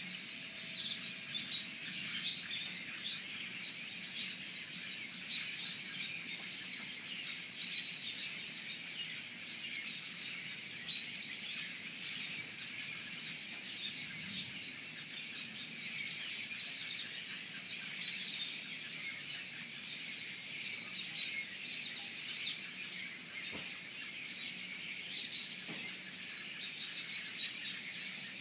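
Many birds chirping, a dense overlapping chatter of short high calls that never lets up.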